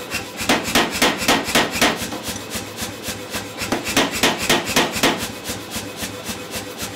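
Power hammer striking a handled top tool held on a glowing block of hot steel: two runs of heavy blows, about four a second, each lasting about a second and a half, with lighter blows going on between them.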